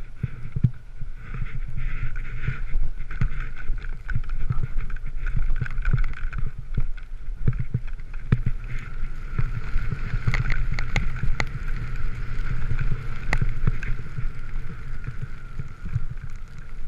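Skis sliding and carving through snow, picked up by a camera worn by the skier: a steady low rumble with many small knocks from bumps along the way.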